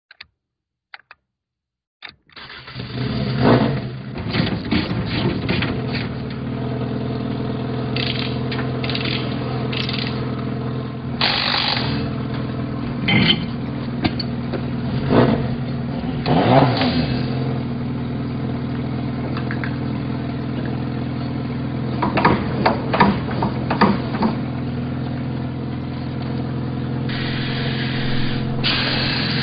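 A few switch clicks, then the 2011 Ford Fiesta rally car's engine starts about two seconds in and idles, with repeated sharp throttle blips through the rest.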